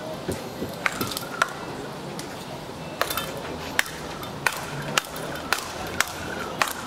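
Speedball rally: rackets striking the ball in quick succession, a dozen or so sharp hits spaced about half a second to a second apart.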